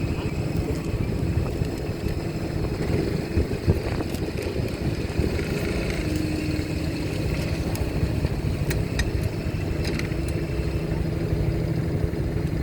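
Heavy engines running steadily with a deep, continuous low rumble, with a few short sharp ticks about nine to ten seconds in.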